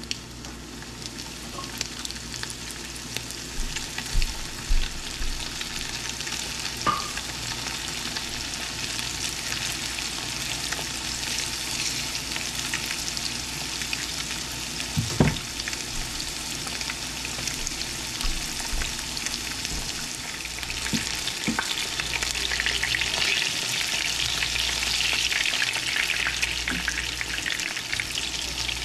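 Floured sheepshead fillets shallow-frying in smoking-hot oil in a skillet: a steady sizzle and crackle that grows louder in the last third. A few low knocks against the pan, the loudest about halfway through.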